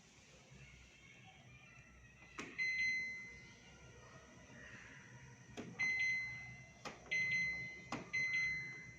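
IFB front-load washing machine's control panel: four sharp clicks, each followed by a short high electronic beep.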